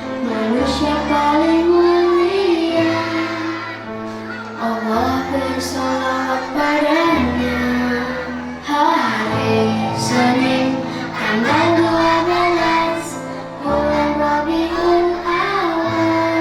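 Children's choir singing a devotional song, with an instrumental backing of held bass notes that change every couple of seconds.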